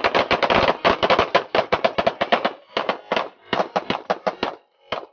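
Rapid handgun fire from several shooters at once: dozens of overlapping pistol shots over about four and a half seconds, then one last shot near the end.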